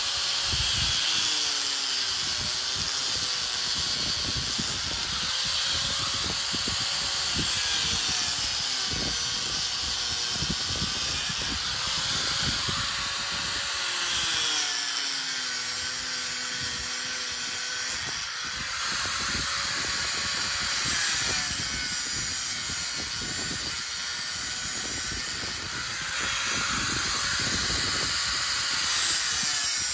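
Corded angle grinder with a cut-off wheel cutting through the steel wires of a hog panel. The motor runs steadily, its whine dipping in pitch several times as the wheel bites into a wire and recovering between cuts.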